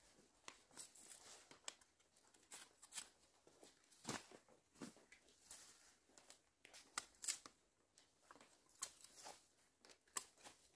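Faint, irregular rustling, crackling and tearing of wild banana stalks and dry leaves being handled and cut by hand.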